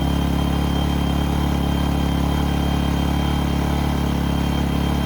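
A-iPower SUA1500i 1500-watt inverter generator's small gasoline engine running steadily with no load, warming up just after starting. It is super quiet for a generator.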